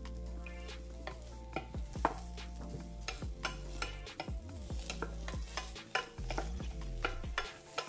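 Wooden spatula stirring and turning sliced carrot and king oyster mushroom in butter in a frying pan: frequent irregular scrapes and taps of the spatula against the pan as the vegetables fry.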